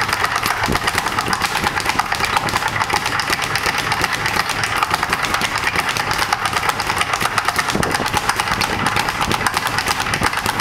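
Speed bag punched in a fast, unbroken rhythm, the bag rebounding off a round wooden rebound board in a steady drumroll of sharp thuds.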